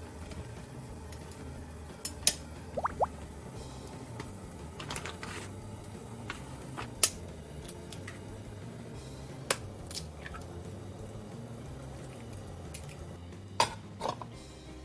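Ramen cooking in a thin aluminium pot on a gas stove: a steady low simmer under sharp clinks of metal chopsticks against the pot, taps of eggs being cracked, and a clank as the metal lid is set on near the end.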